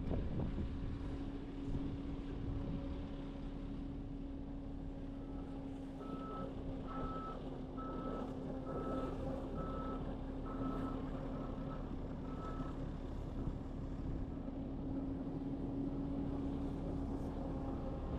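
Heavy equipment's diesel engine running steadily, with a backup alarm beeping about ten times, a little faster than once a second, from about five seconds in until about thirteen seconds in.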